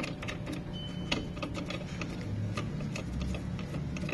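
Light, irregular metal clicks and taps from hand tools working the bolts on a centrifugal pump's steel stand, over a steady low hum.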